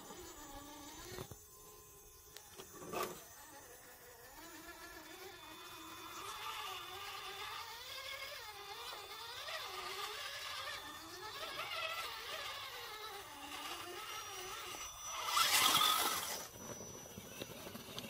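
Electric motors and gear drives of 1/10-scale RC rock crawlers whining, the pitch rising and falling as the throttle is worked over the rocks. There is a sharp click about three seconds in and a short, loud rush of noise about fifteen seconds in.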